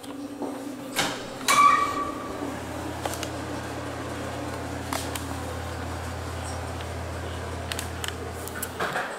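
A couple of clicks and a short squeak as the bathroom door and switch are worked, then a bathroom exhaust fan starts and hums steadily with a low drone. The hum cuts off suddenly near the end, with light knocks and footsteps on tile.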